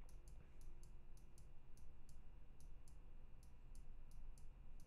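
Computer mouse clicking quietly and irregularly, about three to four small clicks a second, as the chart is moved along.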